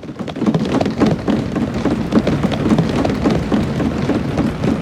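An assembly audience applauding, many hands at once in a dense, steady patter, with a crowd of voices calling out beneath it.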